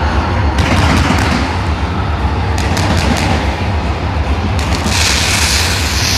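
Fireworks going off: a run of sharp bangs and cracks over a steady low rumble, with a hissing crackle swelling up near the end.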